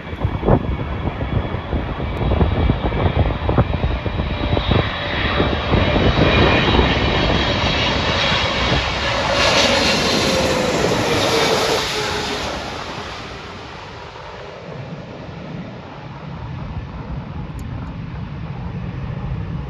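Boeing 777-300ER's twin GE90 turbofans passing low overhead on landing approach, growing louder to a peak about ten seconds in. At the peak a whine drops in pitch, then the sound fades to a distant rumble as the jet moves away toward the runway.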